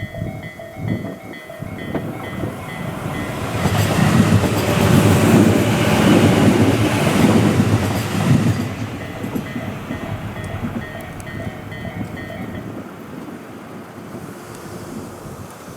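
Japanese level-crossing warning bell ringing in a steady repeating beat while an electric commuter train passes, its wheels clattering over the rail joints. The train is loudest in the middle and then fades, and the bell stops about three-quarters of the way through as the crossing clears.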